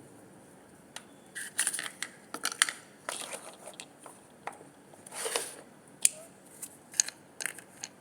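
Squishy toys being handled and squeezed: irregular sharp clicks and short crackly, crinkling rustles.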